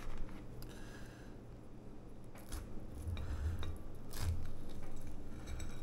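Knife and fork scraping and clicking against a plate while cutting a piece of cooked chicken, with a few sharp clicks and dull knocks in the second half.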